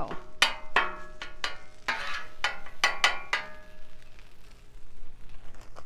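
Metal kitchen utensils clinking against metal, a quick series of about ten sharp strikes that each ring briefly, then only a few faint ticks.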